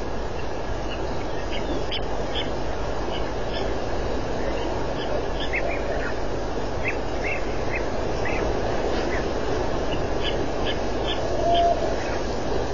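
African wild dogs twittering: many short, high chirps, a few a second, some sliding down in pitch, over a steady background noise. A single short held note sounds near the end.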